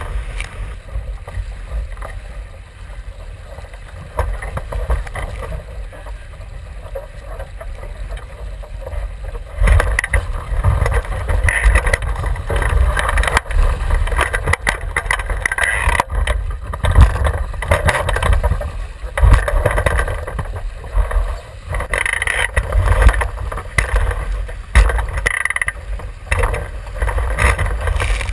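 Water rushing and spraying past the hull of a Javelin sailing dinghy moving fast, with wind buffeting the microphone. It grows louder and gustier about ten seconds in, with irregular surges of spray.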